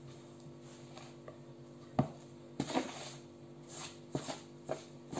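Metal fork clicking and scraping against an orange plastic mixing bowl as vareniki dough is stirred: scattered light clicks, the first about two seconds in and several more after the midpoint, over a steady low hum.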